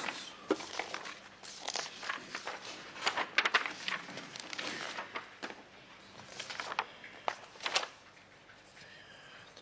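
Photographs being handled and laid down on a desk: irregular light taps and paper rustles in clusters, dying down near the end.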